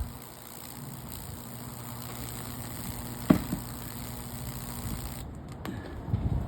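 Microwave oven transformer humming steadily while its high-voltage arc hisses through baking-soda-soaked wood, with one sharp snap about three seconds in. The hum and hiss cut off suddenly about five seconds in as the power is cut, followed by a few light knocks.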